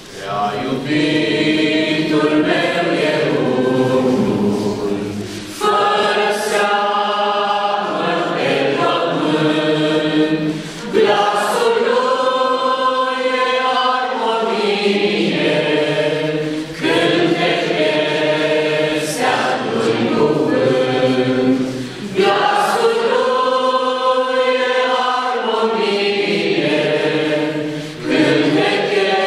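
A small mixed choir of men and women singing a hymn in held notes, in phrases broken by short breath pauses about every five to six seconds.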